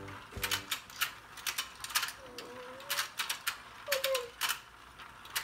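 Battery-driven Let's Go Fishing toy game turning, its plastic gears and opening-and-closing fish mouths clicking irregularly, about four clicks a second.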